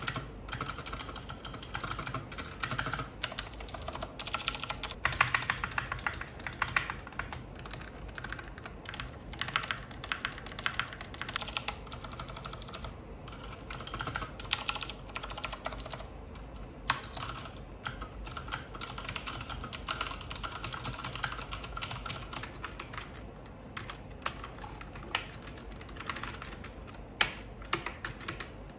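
Fast typing on a Cosmic Byte GK16 Firefly mechanical keyboard with clicky Outemu Blue switches: a dense, continuous run of key clicks.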